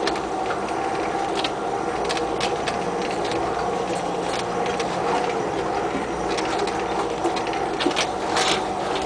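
Off-road 4x4 engine running at low speed, heard from inside the cab, with frequent sharp clicks and knocks of the body rattling as it bumps along a rough dirt track.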